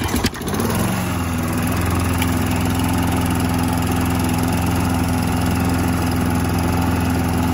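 Red push mower's small Briggs & Stratton engine running steadily just after starting, its pitch settling about a second in. It runs smoothly again on a newly fitted flywheel key, the old one having sheared in half.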